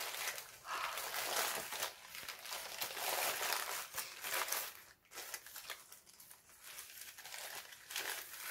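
Wrapping being handled and crinkling in irregular bursts, with a short pause about five seconds in.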